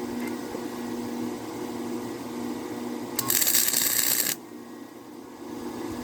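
An electric arc welding bead crackling and hissing for about a second, starting about three seconds in and cutting off abruptly, on galvanized pipe. A steady machine hum runs underneath.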